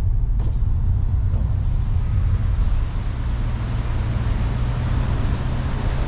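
Car driving along a road: steady low engine and road rumble with a constant low hum, and road and wind noise growing louder from about two seconds in.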